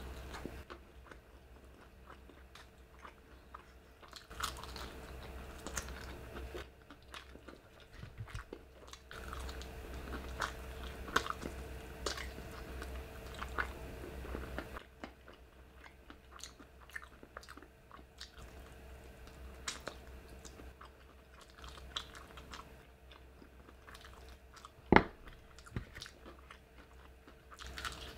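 Close-miked chewing and biting into crispy fried food, with irregular crunches and mouth clicks in bouts, and one sharp, loud crunch near the end.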